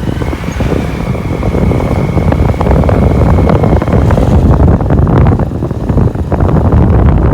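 Wind buffeting the microphone over the low rumble of a motorcycle being ridden along a road.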